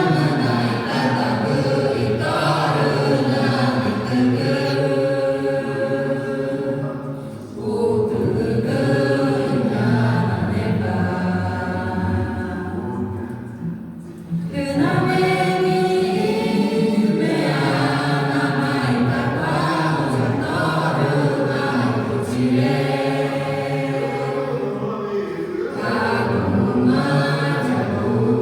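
A choir singing in long, held phrases, with two short breaks, about seven and fourteen seconds in.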